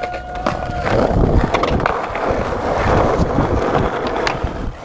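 Skateboard wheels rolling over rough concrete and asphalt, a continuous gritty rumble that swells in the middle, with a sharp knock near the end.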